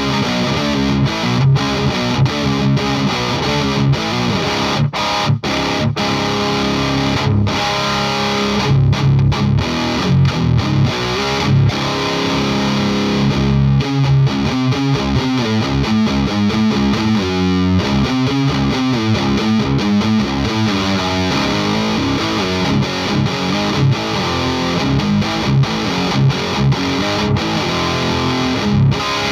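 Heavily distorted electric guitar, an Ibanez V-Blade with custom humbucker pickups, playing metal riffs: chugging low notes broken by short stops and sharp attacks.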